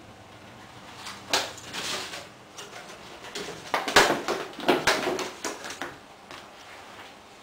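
Thin PVC drop-ceiling tile handled and flexed by hand: a string of plastic crackles and knocks, loudest about four seconds in.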